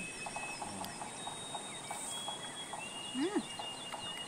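Tropical forest ambience: a steady high insect hum with long held whistling tones, birds chirping, and a rapid run of short notes in the first two seconds. About three seconds in, a brief hummed 'mm' from a voice rises and falls.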